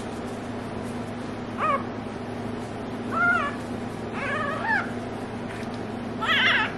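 Newborn goldendoodle puppy crying: four short, high-pitched squeals that rise and fall in pitch, a second or two apart.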